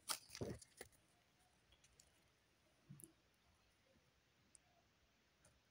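Pokémon booster pack wrapper crinkling as it is torn open in the first second, then near silence with a few faint clicks from cards being handled.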